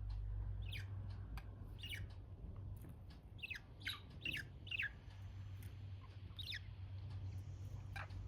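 Budgerigars giving short chirps that each drop sharply in pitch, with a quick run of four about three and a half seconds in and single chirps between. A steady low hum runs underneath.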